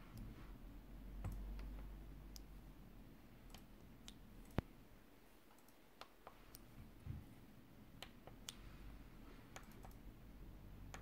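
Faint, irregular clicks and taps of a fingertip pressing the keys of a backlit membrane switch keypad, with one sharper click about four and a half seconds in. A low steady hum runs underneath.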